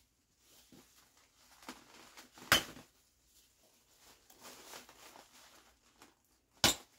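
Light handling noise from a syringe being worked in the fill hole of a plastic sand art lamp frame, with two sharp knocks, one a couple of seconds in and one near the end.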